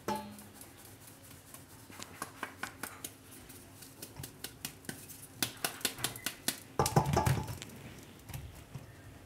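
Round steel flour sieve tapped by hand over a steel bowl while wheat flour sifts through: a quick series of light taps. About seven seconds in comes a louder knock and rattle of metal.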